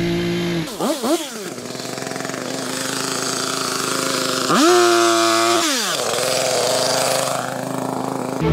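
Gas chainsaw engine idling, blipped twice about a second in, then revved up to high speed and held for about a second before dropping back to idle.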